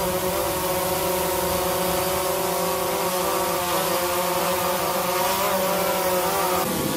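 DJI Phantom 2 Vision Plus quadcopter in flight: its four brushless electric motors and propellers make a steady buzzing whine of several tones together. The pitch wavers in the middle and shifts again near the end as the drone manoeuvres.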